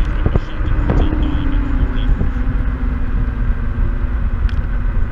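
Wind rumbling on the microphone while riding a Kaabo Mantis Pro dual hub-motor electric scooter, with a steady motor whine that slowly falls in pitch from about a second in. A couple of short knocks come in the first second.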